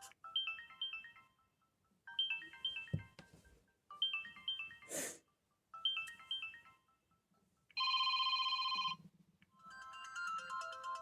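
Samsung Galaxy S2 ringtones previewing through the phone's small speaker. A short chiming figure of stepped notes plays four times. A loud steady buzzy tone follows for about a second. A different, slower melody starts near the end. A soft knock comes about three seconds in.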